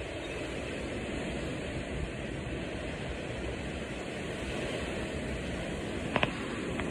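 Storm wind and heavy rain as a steady rushing noise, with a couple of sharp clicks about six seconds in.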